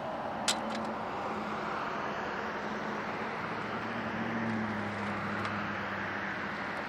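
Steady rushing noise with a low droning hum that swells about four to five seconds in, like a vehicle going by. One sharp snap comes about half a second in, with a couple of fainter ticks after it.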